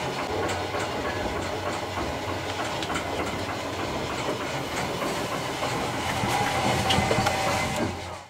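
Steam plant of a coal-fired steam tug running, heard below decks: a steady hiss and low hum with a rapid mechanical clatter. It cuts off abruptly near the end.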